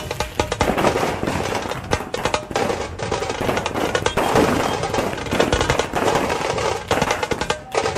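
A string of firecrackers crackling in rapid, dense pops over loud procession music.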